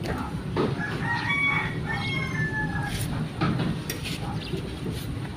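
A rooster crowing about a second in, over a steady low background rumble, with a few sharp clicks later on.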